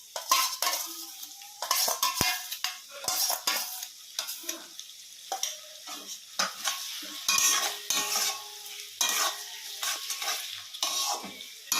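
Spatula scraping round a kadai, stirring onions, capsicum and chillies that sizzle in the pan with freshly added soy and tomato sauce. The strokes come in irregular bursts.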